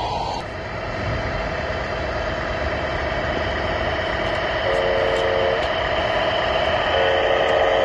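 RC scale truck's electronic sound unit playing a steady diesel engine rumble, with two short horn toots, one about five seconds in and one near the end.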